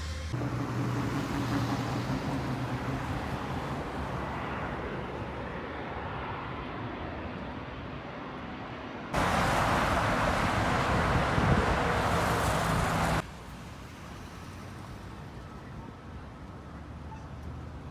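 Steady vehicle noise, a hum with hiss and low engine tones, in several spliced clips; a louder, hissier stretch cuts in about halfway through and stops abruptly about four seconds later.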